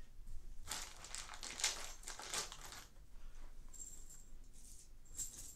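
Faint rustling, then two brief light metallic clinks, from bed-frame hardware (bolts and washers) being handled.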